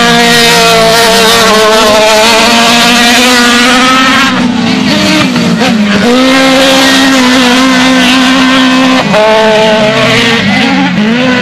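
Autocross race car engines running hard at high revs, loud and steady, with the pitch dipping and climbing again about four seconds in and near nine seconds.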